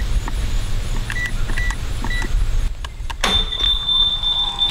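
Wireless gate keypad giving short beeps as a code is punched in, about four or five in the first two seconds. About three seconds in, a steady high tone starts and holds as the code is accepted.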